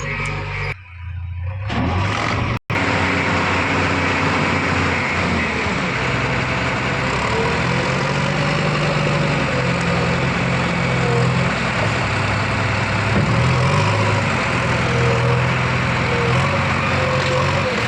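Diesel engine of a backhoe loader running under working load, its revs rising and falling as the hydraulics dig and swing. The sound dips briefly about a second in and cuts out for an instant just before three seconds in.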